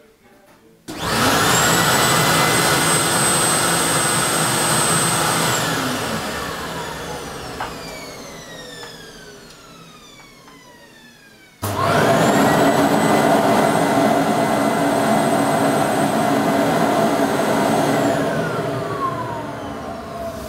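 Central vacuum power unit motors switched on twice. The first starts about a second in and runs at full speed with a steady whine for about five seconds. It is then switched off and spins down, its pitch falling. A second unit, the white GV Pumatic, starts a little past halfway, runs for about six seconds, and is winding down at the end.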